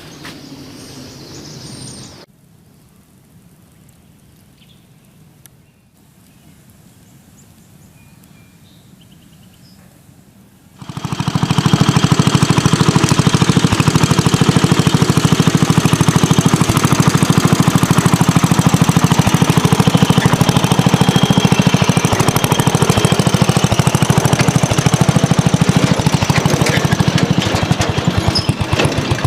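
Quiet outdoor ambience, then about eleven seconds in a small gasoline engine starts up loud and keeps running steadily with a rapid, even firing beat.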